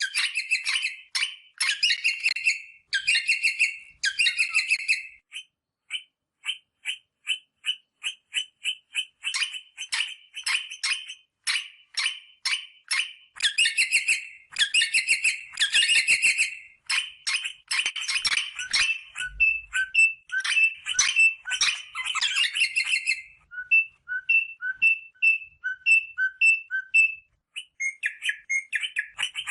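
Rosella parrot calling: rapid bursts of harsh chattering notes, then, from about two-thirds of the way in, a repeated two-note call, a higher note followed by a lower one.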